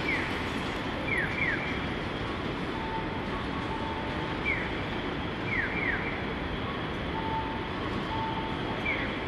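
City street traffic running steadily, with a Japanese pedestrian-crossing audible signal chirping over it: a single falling "piyo" answered by a quick double "piyo-piyo", repeating every few seconds.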